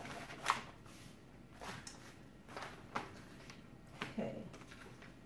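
Plastic protective film on a diamond painting canvas rustling and crinkling under the hands as it is lifted and smoothed, in a few short, faint rustles about a second apart.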